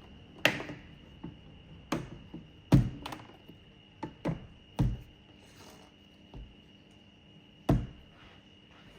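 Sharp knocks and clicks from handling a tool set's box and case while opening it, about eight irregular strikes, the loudest a little before 3 s and near 8 s.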